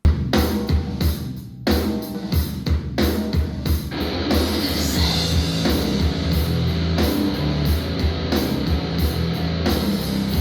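Heavy rock track with distorted guitar and drums played through a Tribit StormBox Blast 2 portable Bluetooth speaker. It starts abruptly with a heavy bass line and has a brief break about a second and a half in.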